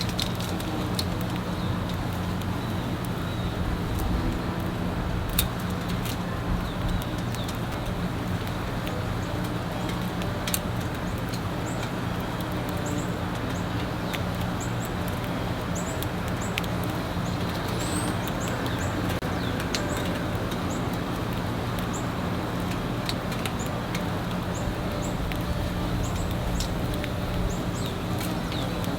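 Birds at a backyard seed feeder: short, high chirps repeating through the second half, with scattered sharp clicks and wing flutters. A steady low hum runs underneath.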